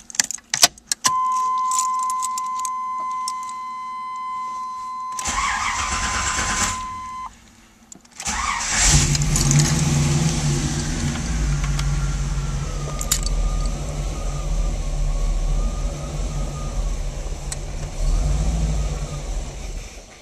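Keys rattling and a steady warning tone from the 1988 Camaro, then its 305 TBI V8 cranking. The engine catches about eight seconds in and idles cold with a wavering level, the rough cold idle the owner cannot cure despite a new oxygen sensor and throttle position sensor, before cutting out near the end as it stalls.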